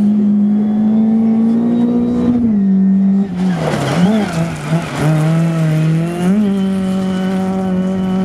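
Rally car engine running at high revs, its note held steady with small dips. About three seconds in, gravel noise from a car going by rises sharply, and the revs drop and swing for about two seconds before climbing back and holding high.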